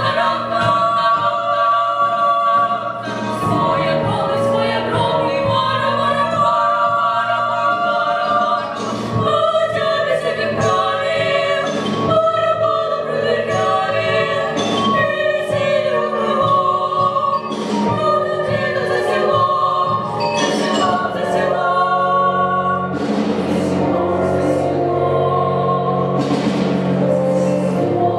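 Children's choir singing in parts, holding long chords. Short sharp percussive hits are scattered through it, and a low sustained part comes in about three-quarters of the way through.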